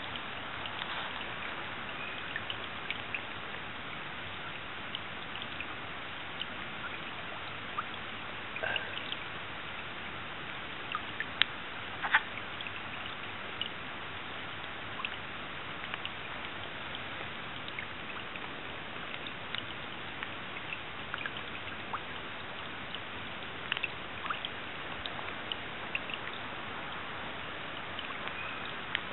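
Wood frogs giving short, scattered clucking calls now and then over a steady hiss.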